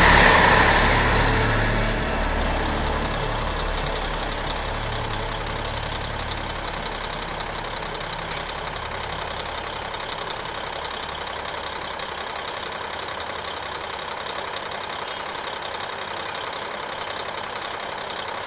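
A train going by close, loudest at the start and fading away over a few seconds, then a steady low rumble with a hum.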